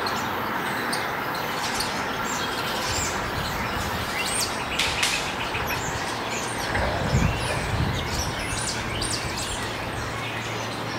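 Birds chirping and tweeting over a low steady rumble, with a brief low thumping about seven seconds in.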